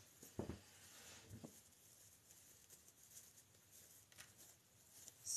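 Faint rustling of ribbon being twisted by hand into bow loops, with a few soft ticks.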